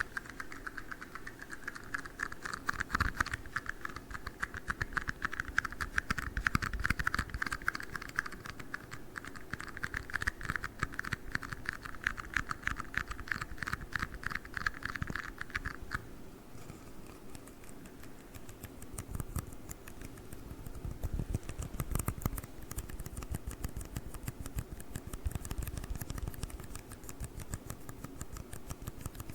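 Fast, dense tapping and clicking on tiny cups close to the microphone, in the manner of ASMR fingernail tapping. For the first half the taps carry a ringing tone; about halfway through it stops, leaving drier clicks.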